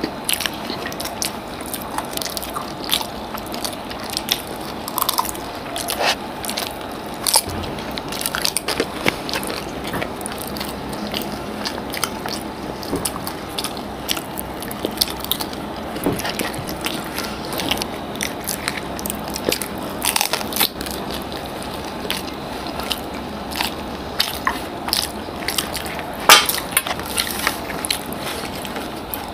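Two people biting and chewing dahi fuchka: crisp puri shells crunching with many short, irregular clicks and crackles, and one sharper crunch near the end.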